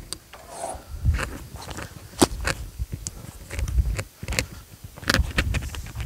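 Irregular low rumbling that swells and fades, with scattered sharp clicks and knocks, the loudest about two seconds in and a cluster around five seconds in. No steady engine sound.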